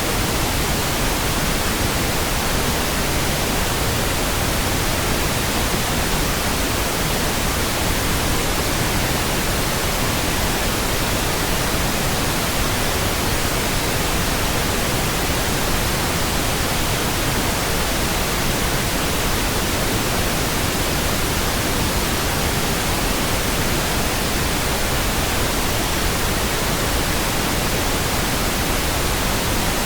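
Steady pink noise: an even, unchanging hiss spread across the whole range, with no tones or breaks.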